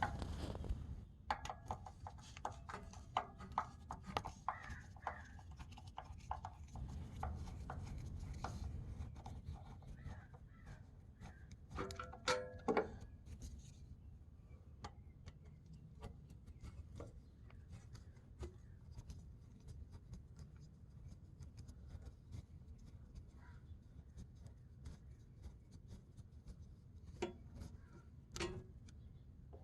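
Handling noises: scattered light clicks, knocks and rubbing, with a brief ringing metal clank about twelve seconds in and a few more knocks near the end.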